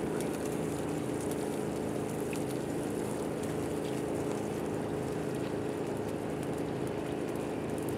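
A motor running steadily, a constant low drone that neither rises nor falls.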